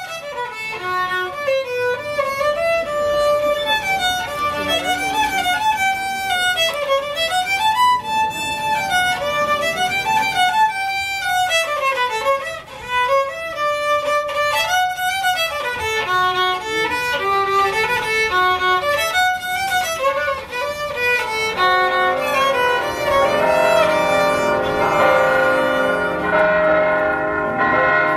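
Solo violin playing a flowing melody that runs up and down in steps. About three-quarters of the way through, church bells start ringing beneath it, with many long-held tones overlapping.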